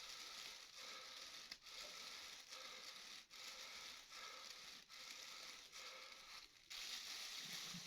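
Faint crinkling and rustling of a plastic shopping bag held over the mouth as a person breathes in and out of it to stop hiccups, broken by short pauses a little under once a second.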